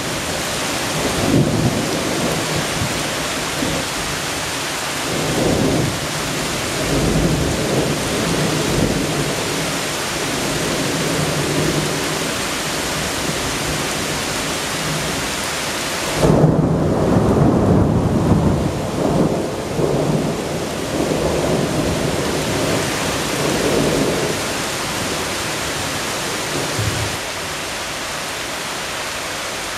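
Thunderstorm: steady heavy rain with thunder rumbling again and again, the loudest peal breaking about halfway through and rolling on for several seconds.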